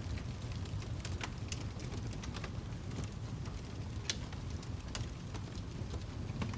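Wood fire crackling: scattered, irregular sharp pops and snaps, the loudest about four seconds in, over a steady low rumble.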